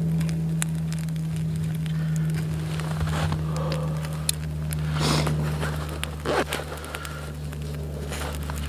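Small fire of birch bark and wood shavings just catching and crackling with scattered small pops, over a steady low hum. Two short louder rushes of noise come about five and six seconds in.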